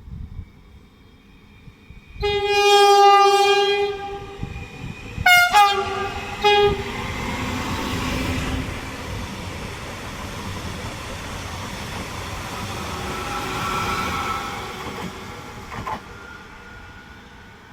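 Train horn sounding one long blast, then two short blasts, as a train runs through the station. The rumble and clatter of the wheels on the rails follow for about ten seconds, then die away.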